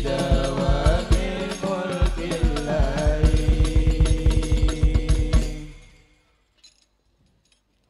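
Young men singing an Islamic devotional song (sholawat) into microphones over rapid frame-drum (rebana) beats, the voices settling into long held notes. The music fades out about five and a half seconds in, leaving near silence.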